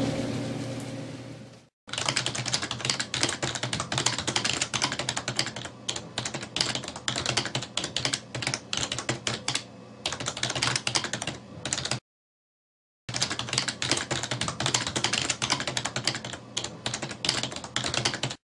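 Rapid computer-keyboard typing clicks, a sound effect laid under on-screen text typing itself out. The clicks pause for about a second midway, then resume. At the start, a steady mechanical hum fades out.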